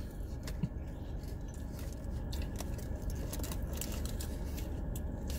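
Car air conditioning running with a steady low hum, with scattered small clicks through it.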